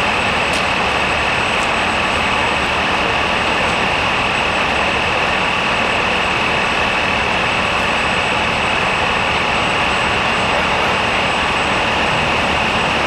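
Boat engine running steadily: a continuous drone with a steady high-pitched whine over it.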